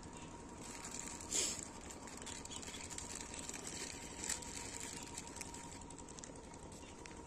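Faint outdoor background noise with a faint steady tone, broken twice by short hissy sounds, about a second and a half in and again a little past four seconds.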